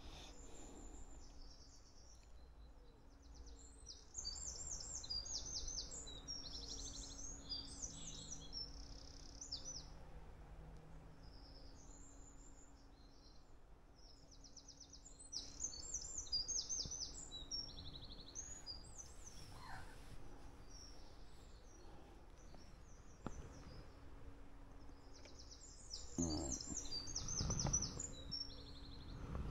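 Small songbirds chirping and trilling in quick, high-pitched bursts, over a faint steady hum. A few low bumps come near the end.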